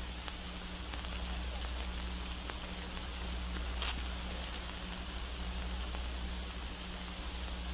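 Steady hiss and low hum of an old archival film soundtrack, with a few faint crackles, one of them about four seconds in.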